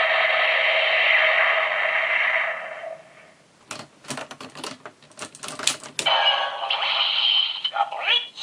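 Electronic Kyoryuger toy sound effect from the Magiranger Beast Battery ringing out and fading, then a quick run of plastic clicks. Another electronic sound starts near the end.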